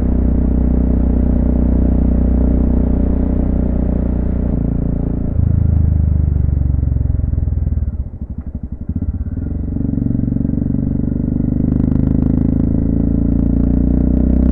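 Honda FMX650's single-cylinder engine running as the bike is ridden. About eight seconds in the engine note drops and its separate firing beats come through, then it builds steadily again.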